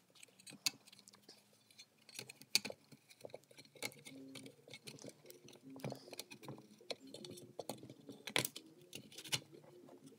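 Irregular clicks, taps and light scrapes of a Morley VAI-1 wah pedal's circuit board being pried up through its foam and worked out of the metal housing by hand, with sharper clicks about two and a half seconds in and again near the end.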